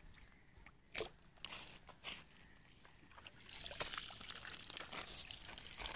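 A few short sharp sounds, the loudest about a second in, then water streaming and dripping out of a soaked cloth fish bag lifted from a pond and splashing into the shallows, starting about three and a half seconds in.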